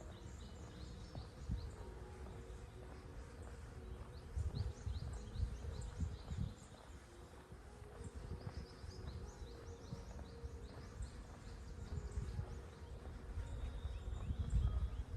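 Small birds chirping in many short, quick calls, with a faint steady hum of bees, over an irregular low rumble on the microphone that swells a few seconds in and again near the end.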